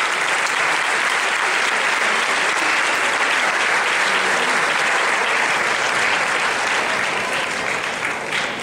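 Audience applauding steadily in an auditorium, tapering off in the last second.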